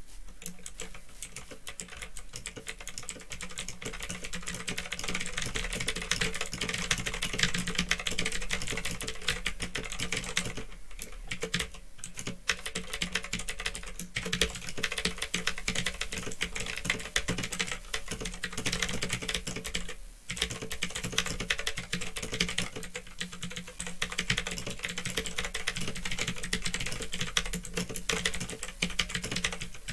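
Fast, continuous typing on a mechanical keyboard with clicky Otemu Blue switches, keystrokes clattering densely with a few brief pauses. A steady electrical hum from an old microphone runs underneath.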